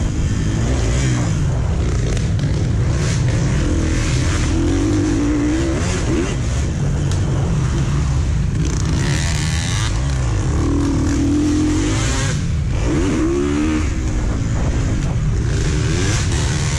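Onboard dirt bike engine revving up and easing off again and again as it is ridden hard around the track, its pitch rising and falling over a heavy low rumble.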